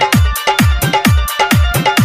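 Instrumental stretch of an Indian DJ remix: a fast electronic dance beat of deep kick drums that drop in pitch, with crisp high ticks and a short repeating synth note.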